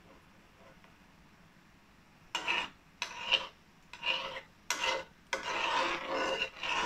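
Metal spoon scraping against the side of a steel kadhai as it swirls the frying oil so the gulab jamuns keep turning. About two seconds of quiet come first, then about six scraping strokes with a faint metallic ring; the last ones are longer.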